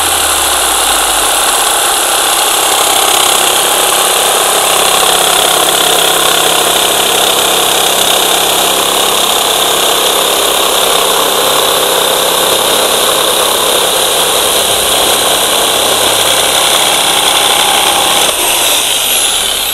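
ZY-1200 electric jigsaw running steadily as its blade cuts slowly through a workpiece. About 18 s in the cut finishes and the motor winds down.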